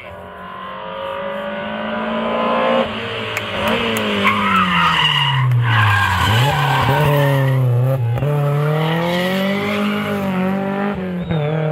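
A rally car engine approaching at high revs, getting louder, then dropping sharply in pitch as the car brakes and shifts down, with tyre squeal. The engine then climbs in pitch again as the car accelerates away hard.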